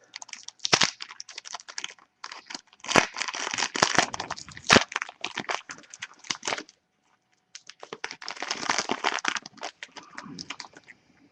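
A trading-card pack wrapper being torn open and crinkled, with sharp crackles throughout. There is a short pause a little past the middle, then another run of crinkling that fades near the end.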